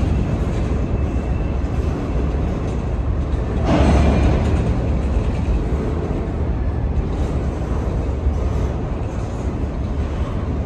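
Freight train of waste-container cars rolling past close by: a steady rumble of wheels on rails, briefly louder about four seconds in.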